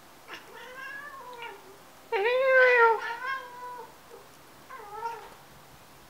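Domestic cats chirping at birds outside: a run of short, pitched calls that rise and fall, the loudest about two seconds in and a shorter one near the end. This is the excited chirping cats make at prey they can see but not reach.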